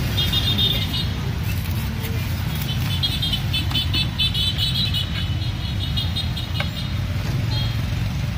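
Steady low rumble of street traffic, with a run of short, quick high-pitched chirps over it that stop near the end.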